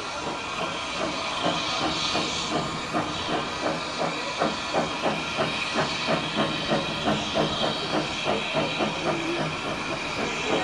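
Small steam tank locomotive hauling a coach, its exhaust chuffing in a steady rhythm of about three beats a second over a constant hiss of steam.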